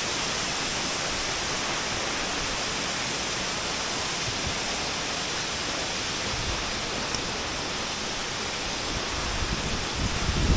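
Waterfall rushing steadily, an even hiss of falling water, with a few low rumbles near the end.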